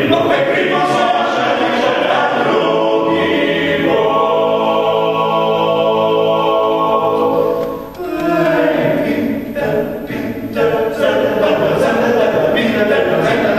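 Male vocal octet singing a Slovenian folk song a cappella in close harmony. About a third of the way in, a chord is held for several seconds. It breaks off briefly, then the singing resumes.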